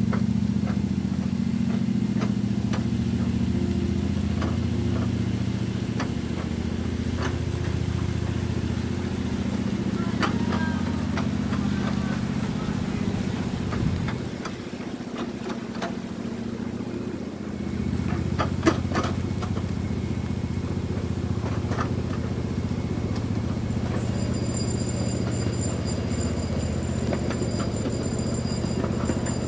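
Engine of a ride-on backyard train running steadily as the train rolls along, with scattered sharp clicks and knocks from the running gear. The engine sound drops back for a few seconds about halfway through, then picks up again.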